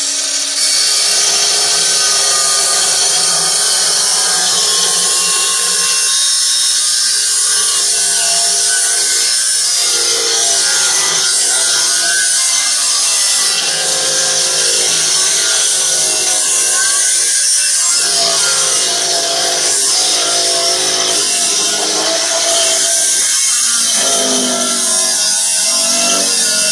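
Angle grinder with a cut-off disc cutting through a galvanized steel stay pipe. It starts abruptly and runs steadily and loudly, a harsh grinding hiss with ringing tones that shift in pitch as the disc bites into the pipe.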